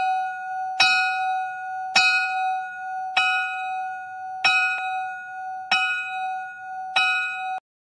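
A bell struck six times, about once every 1.2 seconds, each strike ringing on at the same pitch until the next. The ringing cuts off suddenly near the end.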